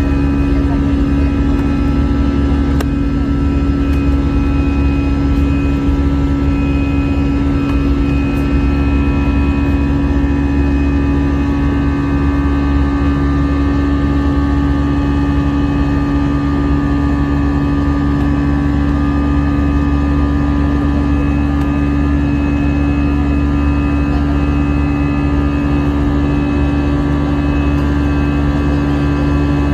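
Cabin noise inside an Airbus A320 airliner: the jet engines and airflow make a steady, unchanging drone with a constant hum.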